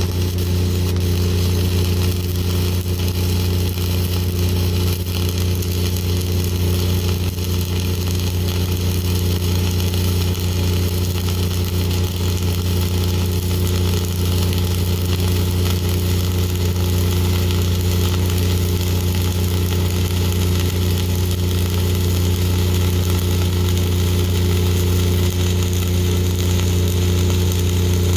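Continuous flux-cored arc welding with Lincoln NR-305 5/64-inch self-shielded wire at about 28.8 volts: a steady, unbroken crackle and sizzle of the arc over a constant low hum.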